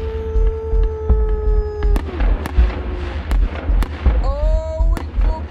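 Fireworks and firecrackers going off in irregular sharp bangs, roughly one every half second to a second. A held whistling tone runs through the first two seconds, and another rises in about four seconds in.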